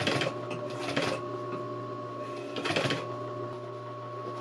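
Industrial sewing machine with its motor running steadily, broken by a few short bursts of stitching through heavy canvas.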